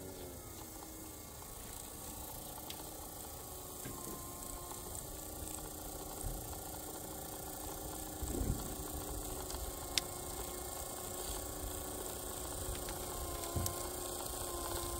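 Electric motors of a G-scale model train running with a steady hum and a whine that drifts slightly in pitch, with a thump about eight seconds in and a sharp click about two seconds later.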